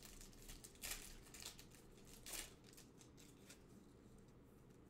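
Near silence with faint rustling and soft clicks of trading cards being handled and flipped through, the clearest about a second in and again about two and a half seconds in.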